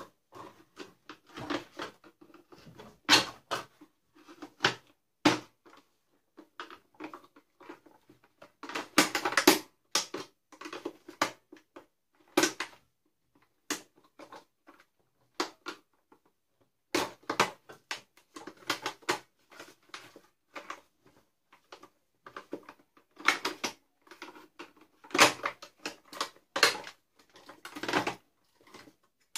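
Irregular clicks, knocks and clatter of plastic parts being handled and taken apart on a Dyson DC41 vacuum cleaner, with a few bunches of quicker clicking.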